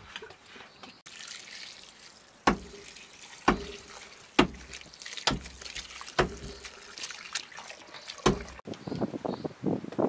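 Water poured from a jug trickling onto fresh herbs in a stainless steel bowl while a hand swishes and presses them, with a sharp splash or knock about once a second, some leaving the bowl ringing briefly. Near the end it gives way to small handling clicks.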